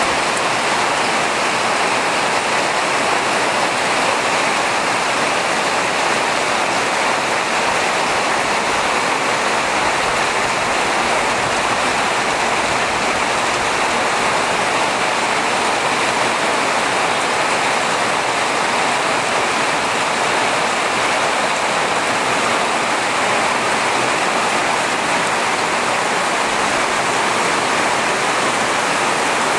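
Steady rain falling, a dense, even hiss with no breaks.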